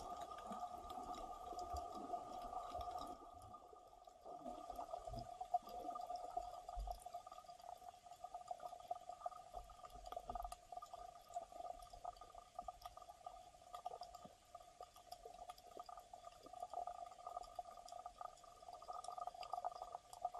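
Muffled underwater sound picked up by a camera sealed in a dive case: a steady hum with faint scattered clicks and low rumbles.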